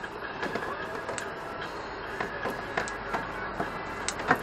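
Irregular light metallic clicks and knocks as parts of a steel go-kart frame's front steering are handled and fitted, with one sharper knock near the end, over a steady background noise.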